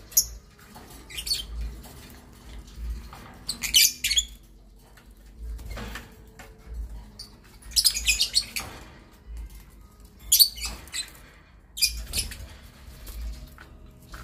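Caged lovebirds chirping in short, high-pitched bursts, about six of them spaced a second or two apart, over a low steady hum.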